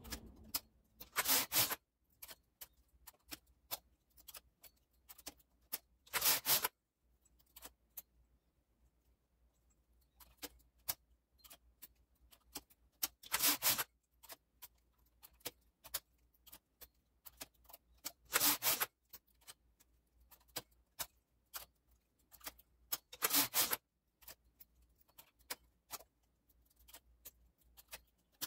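Domestic knitting machine: the carriage is pushed across the needle bed five times, each pass a short sweep lasting under a second, roughly every five seconds. Between passes come faint scattered clicks of needles and the transfer tool as stitches are moved for the decreases.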